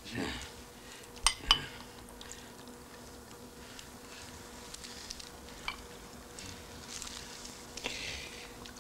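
Two light clinks of drinkware being handled, about a second and a half in, over a faint steady hum.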